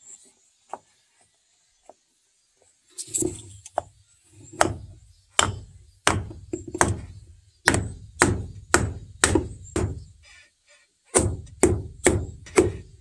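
Hammer striking a small softwood block to drive it into place against a timber post: about a dozen sharp blows at a steady pace, a short pause, then four quicker blows near the end.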